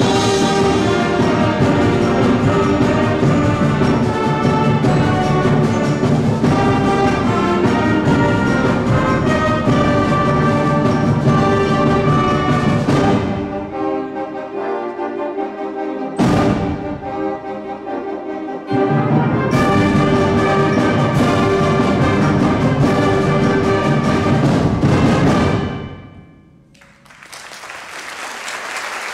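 School concert band of brass, woodwinds and percussion playing the loud closing bars of a piece. The music thins briefly, then comes back with a sudden accented chord before the full band returns. The final chord cuts off, and audience applause rises near the end.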